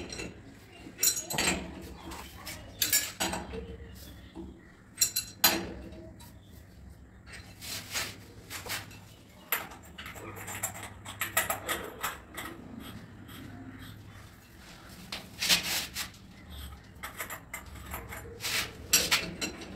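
Chrome bathroom wall fittings being tightened and handled with an adjustable wrench: irregular sharp metal clinks and clicks with some scraping.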